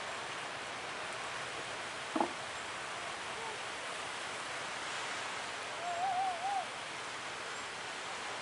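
Surf washing onto a beach: a steady rush of breaking waves, with a brief sharp note about two seconds in and a short warbling call a little past the middle.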